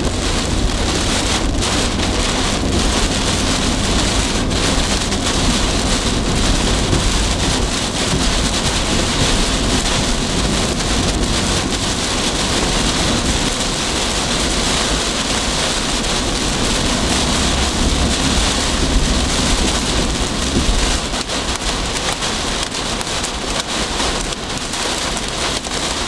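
Heavy wind-driven rain striking a moving vehicle, heard from inside: a steady, loud roar of rain with a deep rumble underneath.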